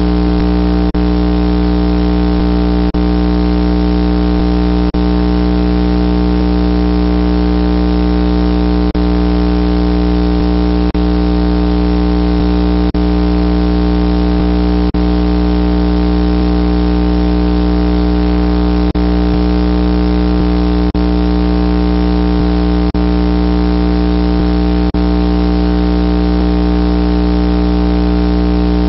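Loud, steady electrical mains hum with many harmonics, holding one unchanging tone throughout, with faint ticks about every two seconds.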